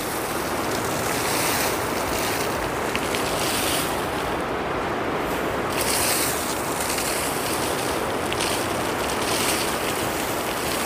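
Pressure-driven water fountain jet spraying high, a steady rush and splash of falling water with no pump motor in it.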